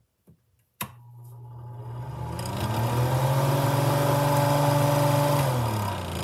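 1960s Emerson Pryne wall exhaust fan starting with a click about a second in. Its motor hum and air rush rise in pitch as it spins up over about two seconds, run steadily, then fall in pitch near the end as it starts to slow.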